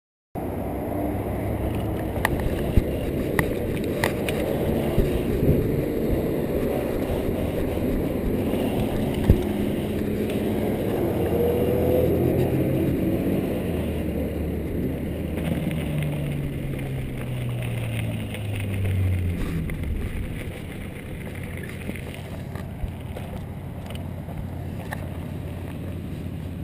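Mountain bike ride heard on an action-camera microphone: steady wind and rolling rumble, with a few sharp knocks in the first ten seconds. A low hum slides down in pitch a little past the middle, and the noise eases off in the last few seconds as the bike slows.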